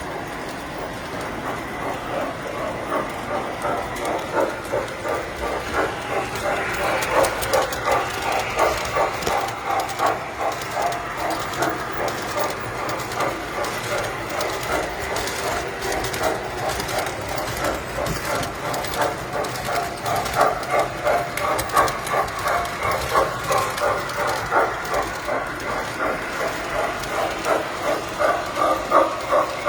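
Tinplate toy trains running on metal track: a steady rhythmic clatter of wheels and motors that swells louder and softer as the trains come near and move off.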